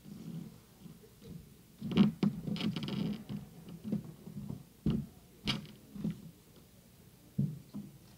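Rustling and handling of paper diplomas and folders close to desk microphones, in a burst about two seconds in followed by a few sharp taps.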